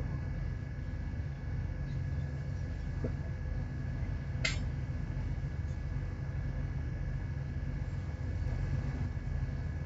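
A ship's engine running with a steady low drone, with one short click about four and a half seconds in.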